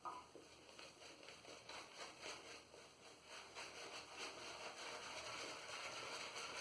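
Zenith B10 boar-bristle shaving brush working shaving soap into a lather: faint, irregular wet swishing and crackling that grows gradually louder.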